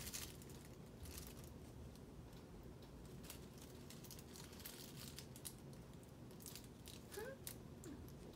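Two kittens wrestling on a fabric blanket: faint, scattered rustling and scratching of their paws and claws on the cloth, with a short faint squeak about seven seconds in.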